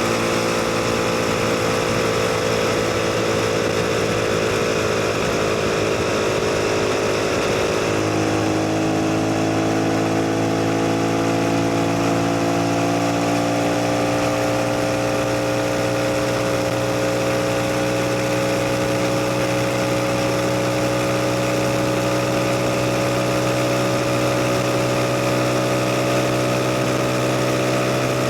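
CF Moto 250NK motorcycle's single-cylinder engine running on the move. Its note eases down for the first several seconds, changes about eight seconds in, then slowly climbs as the bike picks up speed.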